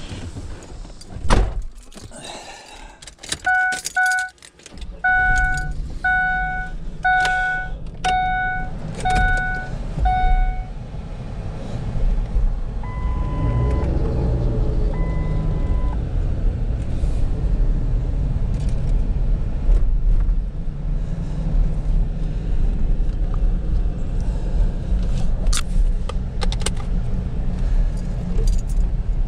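A thump, then keys jingling as a Ford SUV's engine is started and keeps running. A warning chime sounds about once a second for several seconds, followed by two longer, higher beeps while the engine runs steadily as the SUV drives.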